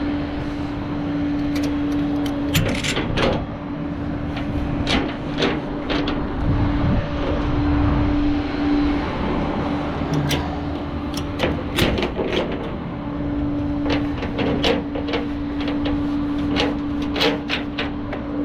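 A vehicle engine running with a steady hum, under many sharp metallic clanks and knocks.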